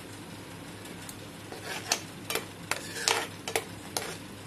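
A steel spoon stirring thick masala gravy in a frying pan, its strokes scraping and clicking against the pan about every half second from a second and a half in, over the low sizzle of the masala as it roasts.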